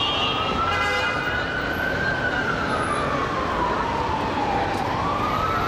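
Fire truck siren sounding a slow wail: the pitch climbs for about two seconds, sinks for nearly three, then climbs again near the end, over steady street noise.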